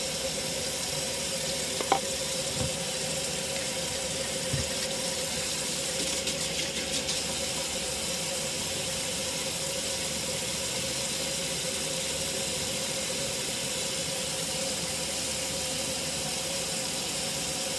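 Kitchen faucet running steadily into a stainless-steel sink, the stream splashing in an even rush with a faint constant tone. One sharp knock about two seconds in.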